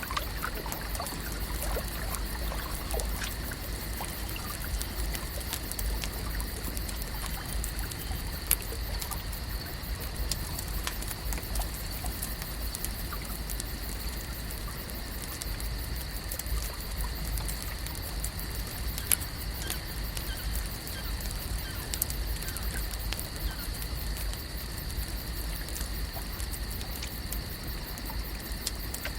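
Lake ambience at night: water gently trickling, under a steady high-pitched chorus and a low rumble, with scattered small clicks.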